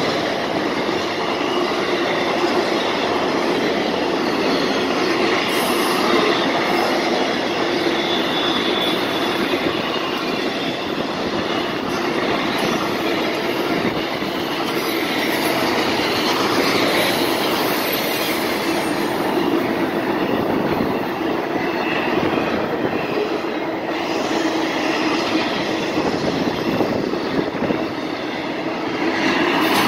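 Freight train flatcars rolling past close by: steady noise of steel wheels on rail, with faint high wheel squeal.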